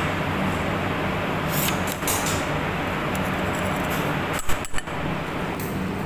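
Steady hum of a kitchen extractor hood fan, with light scrapes and clinks of a metal spoon against a bowl and a muffin tin. Two short, sharp knocks come a little past halfway.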